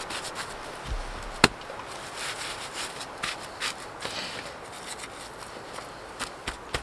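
One sharp, loud knock about a second and a half in, with another near the end, among scattered light rustles and small knocks of work by hand.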